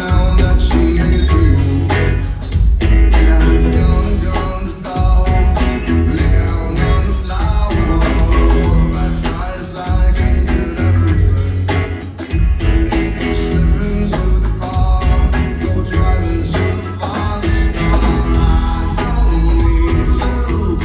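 Rock band playing live: a heavy bass line and drums with guitar and a singing voice.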